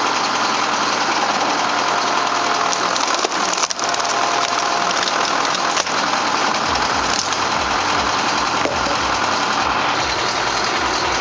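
Tractor-driven chain wood splitter at work on beech logs: machinery running steadily with wood crunching and cracking as the logs split, a few sharp cracks in the middle and a low rhythmic pulsing in the second half.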